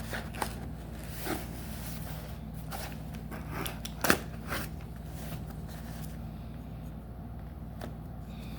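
Trading-card pack wrapper crinkling and crackling as it is opened, in scattered short bursts with one sharp snap about four seconds in, over a steady low hum.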